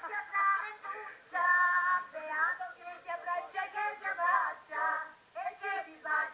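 A voice singing a southern Italian folk song in short phrases, with notes held for about half a second and brief breaks between phrases.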